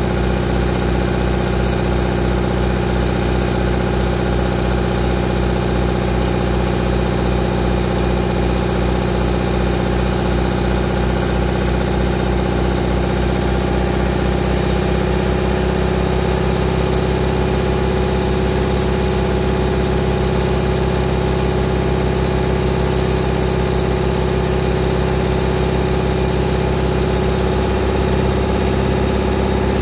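1965 Owens generator's engine running steadily on a mix of compressed hydrogen and oxyhydrogen (HHO) gas, with a thin steady high tone over the engine note.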